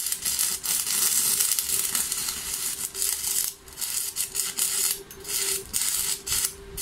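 Stick (MMA) welding arc crackling and hissing as a 2.4 mm rod electrode lays a fillet weld on 4 mm flat steel at 130 A, with a steady low hum underneath. The crackle drops out briefly a few times toward the end.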